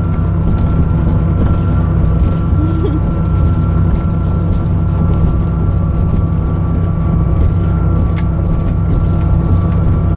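A motor running steadily: a loud low rumble with a constant high whine that does not change.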